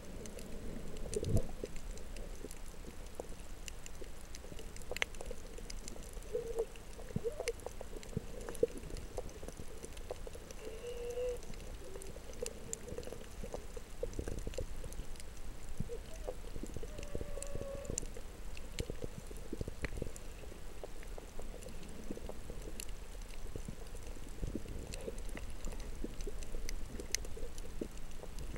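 Muffled underwater sound picked up by a submerged camera: a low rumble with many scattered faint clicks and crackles, and a few short squeaky tones.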